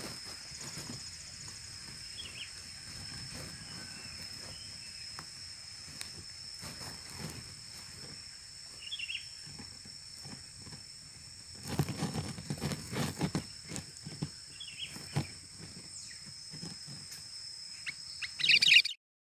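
Steady high-pitched insect drone, with three short bird chirps a few seconds apart. Rustling and knocks come midway, and a louder rustling burst follows just before the sound cuts off.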